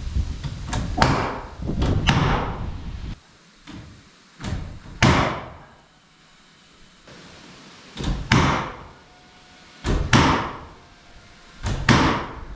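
A series of loud, sharp knocks, mostly in close pairs a fraction of a second apart and coming every one to three seconds, each with a short ringing tail, typical of framing work.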